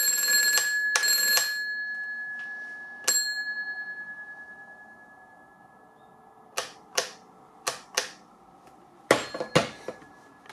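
PMG 8011 telephone's bell ringing a short double ring, then one weaker ding that dies away before the bell falls silent; the bell has packed up. Near the end come several sharp clicks from the phone being handled.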